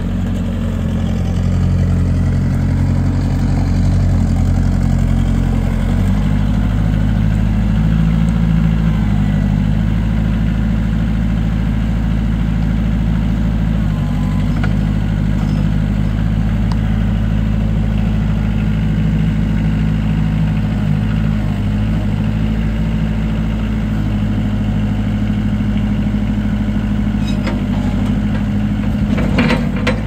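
2013 Kubota L45 backhoe loader's four-cylinder diesel engine running steadily, its note shifting slightly about six seconds in. A few clicks and clanks near the end.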